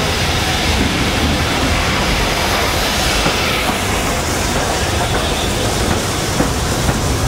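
Steam locomotive and tender drawing a passenger train into the platform and rolling past close by, a steady running noise of the moving train.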